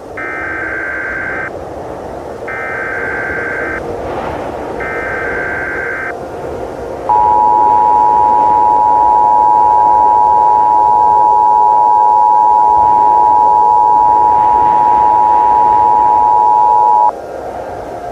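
Emergency Alert System SAME header: three bursts of data tones, each about a second and a half long with short gaps. About seven seconds in comes the two-tone EAS attention signal (853 and 960 Hz), held steady for about ten seconds and then cut off. A constant hiss of static runs underneath.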